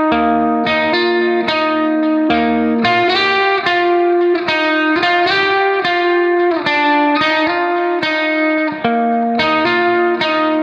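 Background instrumental music: a plucked-string melody, a new note struck a few times a second.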